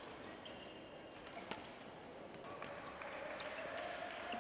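Badminton play on an indoor court: sharp racket strikes on the shuttlecock, the clearest about a second and a half in, and brief high squeaks of shoes on the court floor.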